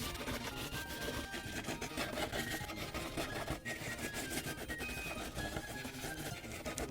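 Rapid back-and-forth colouring strokes of a marker or crayon on paper, a dense scratchy rubbing, with soft background music.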